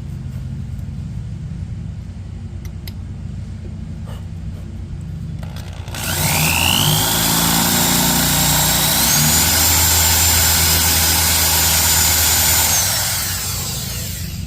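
Electric drill running for about seven seconds, drilling out a seized, stripped brake drum set screw. Its motor whine rises as it speeds up and steps higher partway through, after a low steady hum in the first half.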